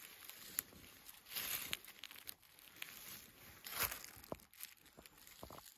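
A few slow footsteps crunching and rustling through dry fallen leaves, with small clicks and snaps of leaves and twigs underfoot.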